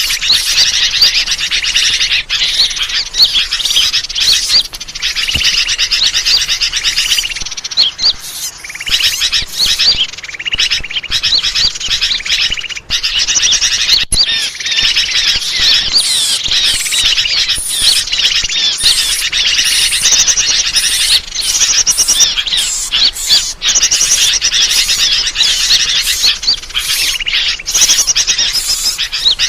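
Bird-lure (pikat) call recording: a dense, unbroken stream of high-pitched chirping and trilling from small birds, many calls overlapping, played to draw birds in.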